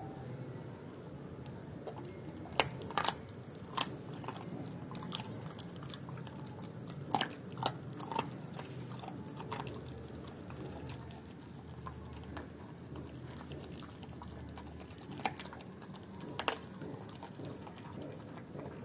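German Shepherd chewing and crunching raw chicken feet, the bones cracking in irregular sharp snaps, loudest in clusters about three seconds in, around seven to eight seconds, and near the end.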